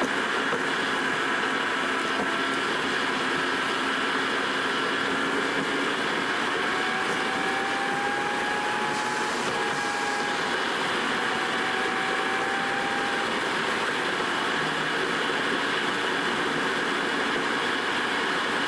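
Steady engine and tyre road noise from inside a car cruising on an expressway, with a faint whine that drifts slightly in pitch.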